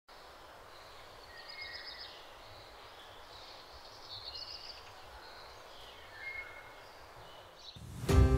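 Faint countryside ambience: a steady low hiss with a few short bird chirps. Just before the end, music comes in suddenly and loudly.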